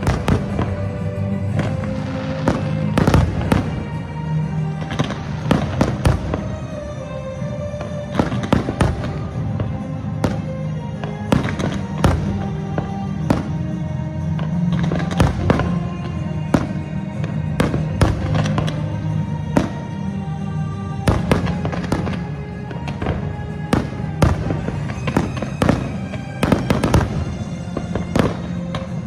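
Aerial fireworks bursting in an irregular stream of sharp bangs, densest a few seconds in and near the end, over the music of a pyromusical show.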